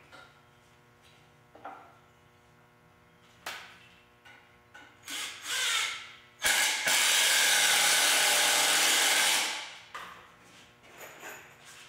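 Cordless impact screwdriver driving a long wood screw into a 2x4, a loud run of about three seconds starting about six and a half seconds in, after a brief start-up burst. Before it, a few light knocks of the boards being set in place.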